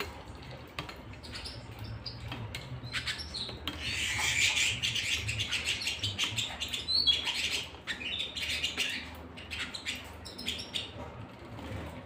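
Domestic canaries chirping and singing, with scattered short chirps and a loud, fast trilled song phrase from about four to seven seconds in.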